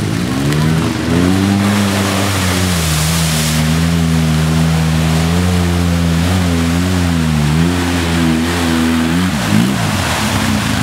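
Polaris RZR side-by-side's engine revving hard as it ploughs through a deep mud hole, with mud and water spraying. The pitch climbs about a second in, holds high with small wavers, and drops away near the end.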